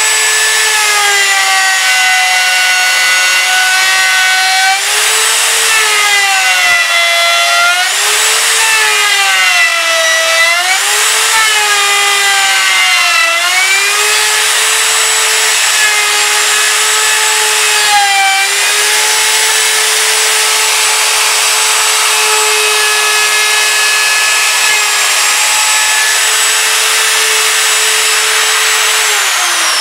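Handheld router with a top-bearing pattern bit cutting a tile recess in maple, following a plywood template: a loud, steady high motor whine whose pitch dips about three times as the bit bites into the wood, then holds steady until the router is switched off near the end and its pitch starts to fall.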